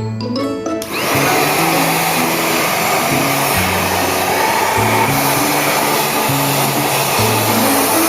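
Lifepro 2-in-1 vacuum cleaner switching on about a second in and then running steadily with a loud rushing hum, over background music.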